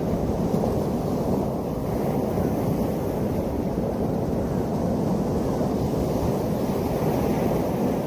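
Sea surf breaking and washing ashore in a steady, deep rush, with wind noise on the microphone.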